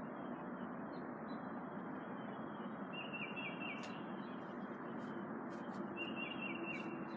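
A small bird chirping in two quick runs of four or five short, falling notes, about three seconds in and again about six seconds in, over steady background noise.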